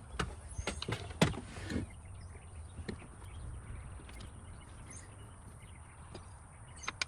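Scattered sharp clicks and light knocks of small parts being handled and fitted together while an outboard motor's ignition and throttle linkage is reassembled. The clicks come thickest in the first two seconds, then thin out.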